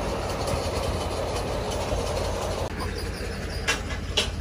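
A vehicle engine running with a steady low rumble, heard from inside a car cabin. The higher part of the noise drops away about two-thirds of the way through, and two short clicks follow near the end.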